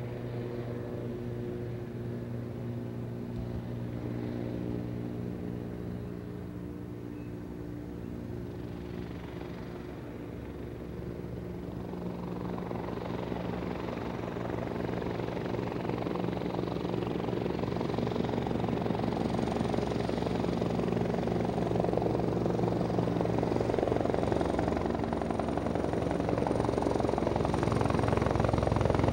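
Air rescue helicopter approaching to land, its rotor and engine drone growing steadily louder through the second half.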